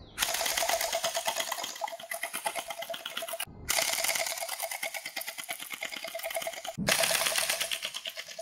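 Electric gel blasters firing on full auto: a rapid, even mechanical clatter of shots from the motor-driven gearboxes, in three long bursts with two brief breaks, about three and a half seconds in and just before seven seconds.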